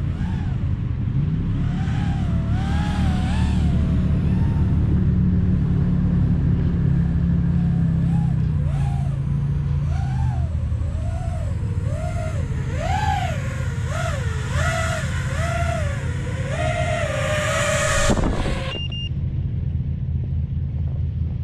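FPV quadcopter's motors whining, the pitch swinging up and down with the throttle as it flies close by. About 18 seconds in it lands on the snow with a short clatter and the motors stop. A low steady rumble runs underneath.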